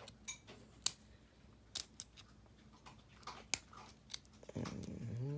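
Sealed foil booster-pack wrapper crinkling and crackling in the fingers as it is worked at to tear open by hand: a few scattered sharp crackles. A man's voice starts near the end.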